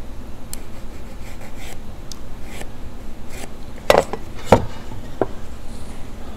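Pencil and metal combination square scraping and ticking on a solid-wood board while a line is marked, then two sharp wooden knocks about four seconds in, and a lighter one after, as the board is turned up on edge against the plywood and the square set against it.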